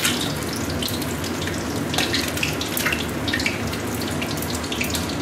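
Hard-boiled eggs frying in hot oil in a wok: a steady sizzle with frequent crackling pops.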